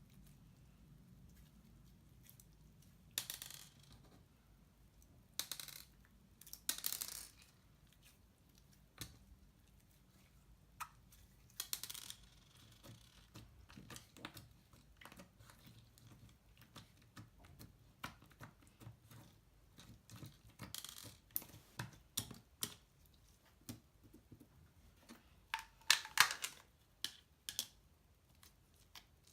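Slime being squeezed and stretched by hand, giving irregular sticky clicks and pops with a few longer squishing bursts, the loudest near the end.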